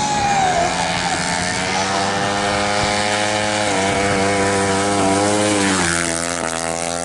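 Two-stroke-sounding drag-race engine of a 200cc open-class automatic scooter held at full throttle on a drag run. The note drops in pitch in two steps, about four seconds in and again near six seconds.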